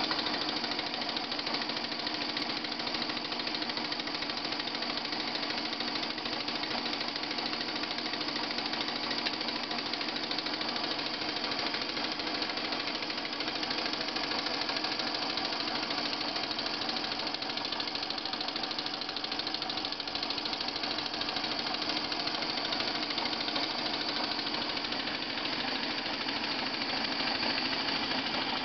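Small model horizontal steam engine running steadily with a rapid, even beat, belt-driving a small dynamo that lights a lamp.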